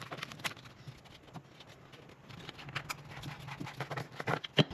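Irregular light clicks and knocks of parts and tools being handled during engine-bay reassembly, with one sharper knock near the end.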